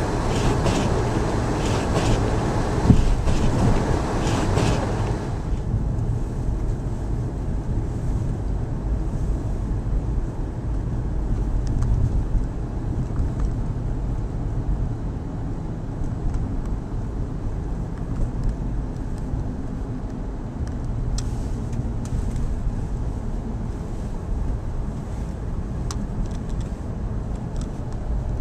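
Car driving on snowy streets, heard from inside: a steady low rumble of engine and tyres. A brighter hiss over the rumble for about the first five seconds, then it drops off suddenly.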